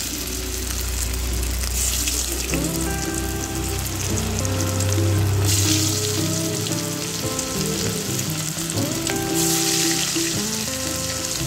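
Marinated, cornflour-coated chicken pieces deep-frying in hot oil: a steady sizzle that swells a few times. Background music with held notes plays under it.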